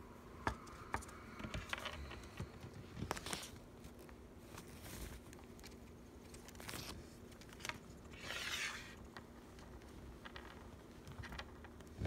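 Scattered light clicks and scrapes of small things being handled, with a short rustle about eight seconds in, over a faint steady hum.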